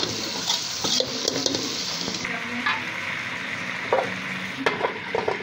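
Steel ladle stirring and scraping chicken and potato curry frying in an aluminium pot, clinking now and then against the pot over a steady sizzle.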